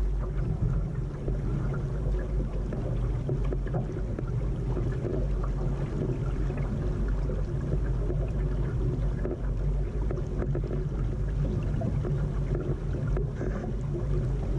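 Water rushing and lapping along a Laser sailing dinghy's hull as it sails under way, over a steady low rumble.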